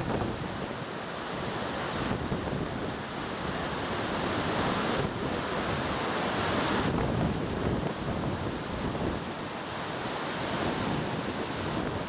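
Waterfall cascading over rock tiers into its plunge pool: a steady, continuous rushing roar, briefly louder and hissier a little before midway.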